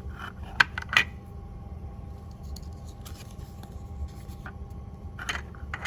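Plastic toy cash register pieces clicking and tapping as they are handled and the scanner is fitted in place, with two sharp clicks about half a second and a second in and a few lighter ones near the end, over a steady low hum.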